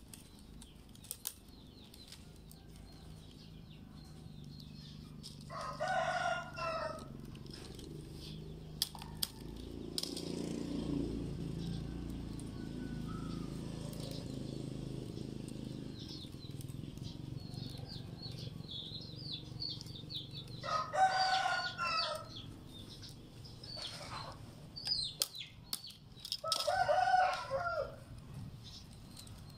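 Chickens calling three times, each call about a second long, with small birds chirping high in the background. Dry rattan strands click and tick now and then as they are woven, and a low rumble swells and fades in the middle.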